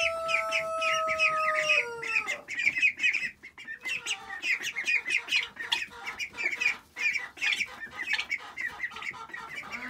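Ducklings and turkey poults peeping, many short high chirps overlapping all the way through. A long held call sounds over them for the first two seconds and drops in pitch as it ends.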